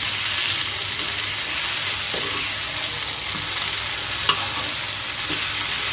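Egg-coated eggplant slices sizzling steadily in hot oil in a frying pan, with a few light taps and scrapes of the spatula against the pan as the slices are flipped.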